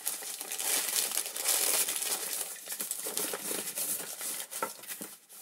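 A bag crinkling and rustling as it is handled and things are packed into it, dying away near the end.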